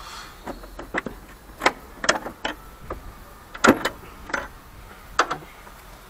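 A dozen or so irregular, sharp clicks and knocks of hand tools and parts being handled, the loudest a little past halfway.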